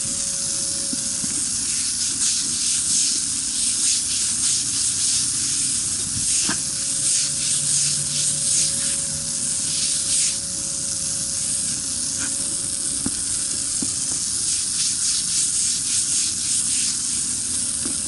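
Pressure washer wand blasting a jet of water onto a concrete slab: a steady hiss of spray over a steady hum, washing the grinding slurry off the ground surface.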